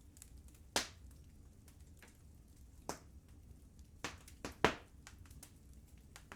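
Wood fire crackling: a handful of sharp pops, the loudest a quick pair a little after the middle, among fainter scattered ticks over a low steady rumble.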